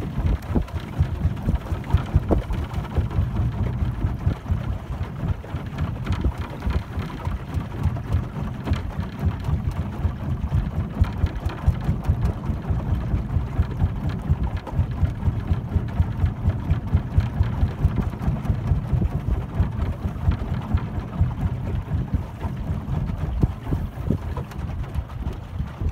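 Wooden motorboat under way: a steady low engine rumble mixed with wind buffeting the microphone as the boat moves, with no pause or change.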